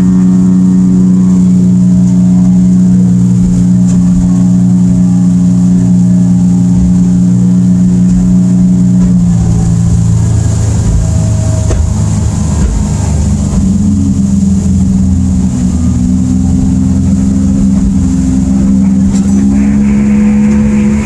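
Evinrude E-TEC 115 two-stroke outboard running under power at planing speed, a steady engine drone. About nine seconds in the note drops and roughens, then climbs back up again.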